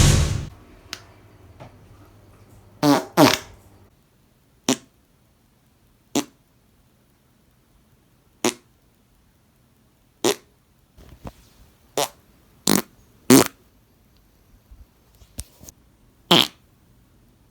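A series of about a dozen short farts, one every one to two seconds, some with a brief buzzing pitch and others short dry puffs.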